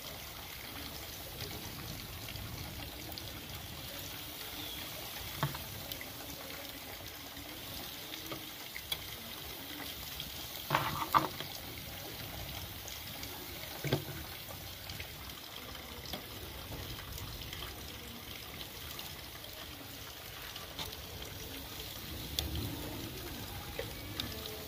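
Pieces of porcupine meat sizzling on a charcoal grill, a steady hiss with a crackling fire under it. A few sharp clacks, the loudest about eleven seconds in, as metal tongs knock against the grill grate.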